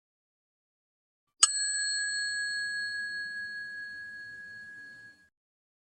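A 'chiin' bell effect: a small Buddhist rin bowl bell struck once about a second and a half in, ringing with one clear note and higher overtones that fade over about four seconds before stopping abruptly. It is the comic sound cue for a painful blow to the groin.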